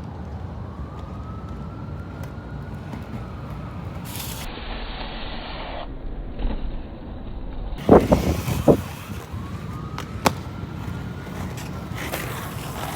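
Steady low rumble of inline skate wheels rolling on pavement, with a faint tone slowly rising and falling twice. A cluster of loud knocks comes about eight seconds in, and a single sharp click follows.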